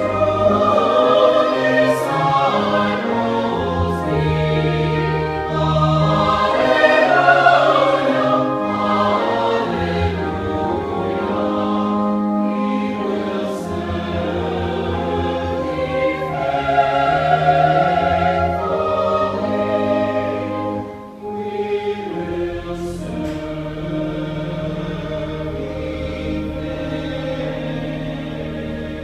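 Mixed church choir singing an anthem in parts, accompanied by pipe organ with low held notes underneath. About 21 seconds in the sound dips briefly, then the singing goes on more softly over sustained low organ notes.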